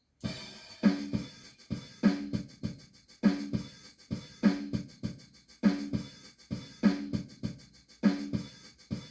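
A steady drum-kit groove at about 100 beats a minute, starting a moment in: a heavy, low-pitched hit every second beat with lighter snare and hi-hat hits between, repeating the same pattern.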